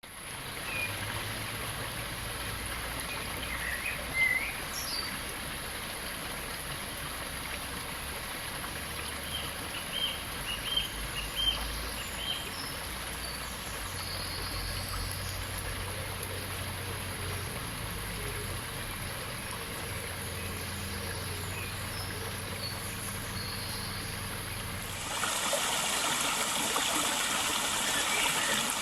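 Steady rush of a small river flowing, with birds singing short chirping phrases over it. About 25 s in the water sound steps up, louder and fuller.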